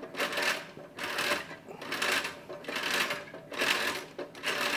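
ROTO-Q 360 rotisserie's spring power unit being wound by hand crank: a mechanical clicking in even strokes, each about half a second long, roughly once a second.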